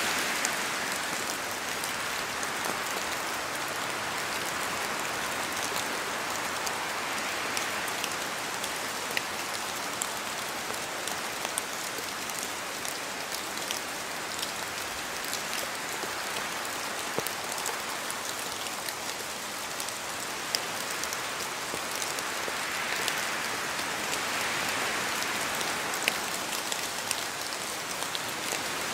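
Steady rain falling in a spruce forest, with many small sharp drips from the trees over a dense hiss. The wind rises and falls through the spruce trees a few times.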